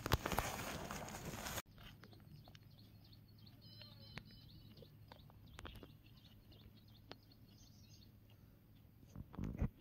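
Hands rustling bait powder on a woven plastic sack, which cuts off abruptly after about a second and a half. Then quiet outdoor background with faint bird chirps, and brief rustling again near the end.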